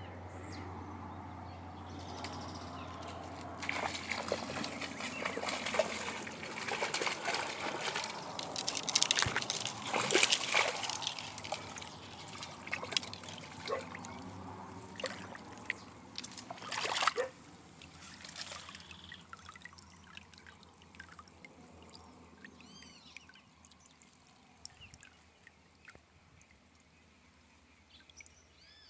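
Water splashing and sloshing with scattered sharp knocks, typical of a hooked trahira thrashing at the surface. It is loudest from about four to seventeen seconds in, then dies down to faint trickling.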